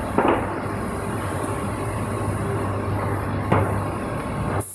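PET preform injection molding machine and its take-out robot arm running: a steady machine hum with two sharp clacks, one just after the start and one about three and a half seconds in.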